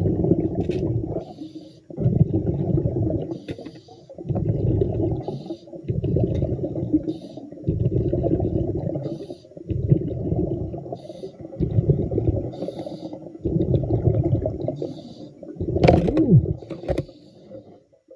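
A diver breathing underwater: a burble of exhaled bubbles about every two seconds, with a short faint hiss between bursts.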